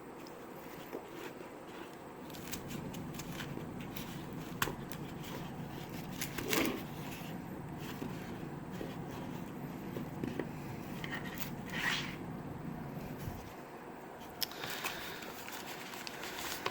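Flashlight case and plastic-bagged accessories being handled and unpacked: scattered clicks, rustles and crinkles of packaging. A low steady hum sits underneath for most of it and stops about thirteen seconds in.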